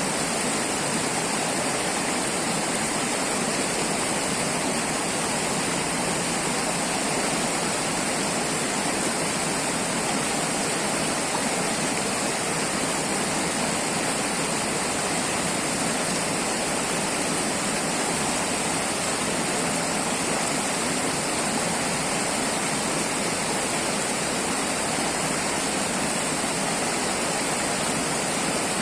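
River water rushing and splashing steadily, a continuous even hiss.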